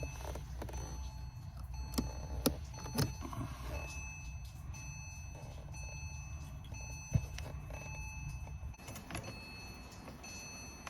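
Porsche 911 997's flat-six being cranked on the starter with the fuel pump fuse pulled, so it turns over without firing to build oil pressure after the oil change. It runs steadily and stops about nine seconds in, with a few clicks and the car's faint high warning chime over it.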